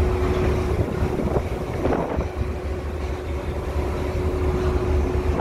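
Ship's engines and deck machinery running on a vessel underway: a steady low rumble with a constant hum, and wind buffeting the microphone. A short louder sound rises above it about two seconds in.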